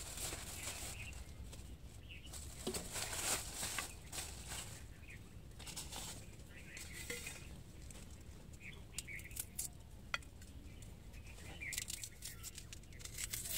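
Thin plastic bag rustling and crinkling on and off as it is untied and handled.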